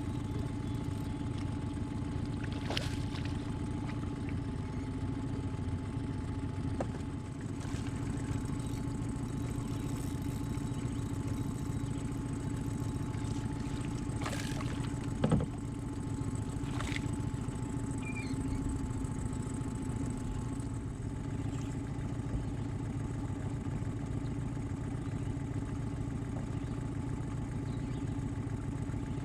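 An engine runs steadily, with one sharp knock about halfway through.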